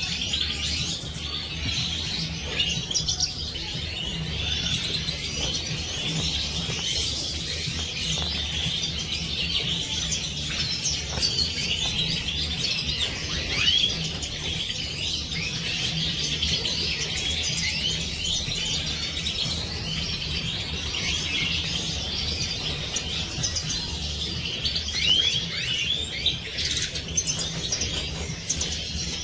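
A flock of Siberian goldfinches (European goldfinch, major race) twittering and chirping together in a dense, continuous chorus of many overlapping calls.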